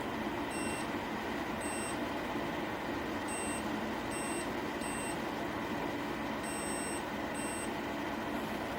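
A series of short electronic beeps, about seven at uneven intervals with one a little longer near the end, over a steady rushing noise.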